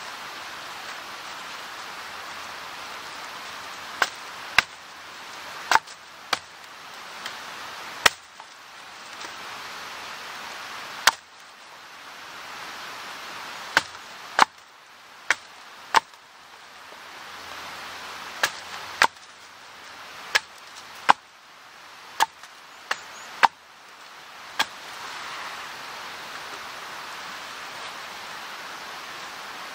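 Hatchet striking a thin branch held upright against a log: sharp wooden knocks at irregular intervals, some in quick pairs, with short pauses between runs of strokes.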